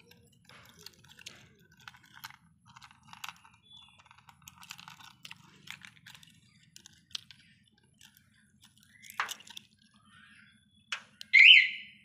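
Scattered light clicks and handling rustle, then near the end a loud, high-pitched electronic siren tone starts: the remote-controlled anti-theft alarm fitted to a Swaraj 744 FE tractor, set off from its key-fob remote.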